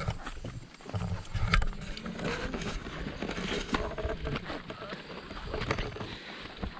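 Footsteps and scuffs of several people climbing a dirt path, with scattered sharp knocks and voices talking in the background.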